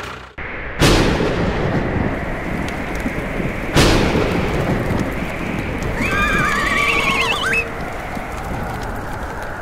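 Two sudden loud booms about three seconds apart over a steady rushing noise, then a wavering, warbling call lasting about a second and a half.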